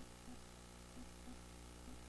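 A faint, steady low hum with soft, small blips about every half second to second.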